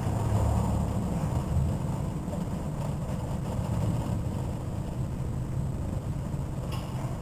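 Low rumbling noise of a thunderstorm, a little louder in the first couple of seconds and then easing.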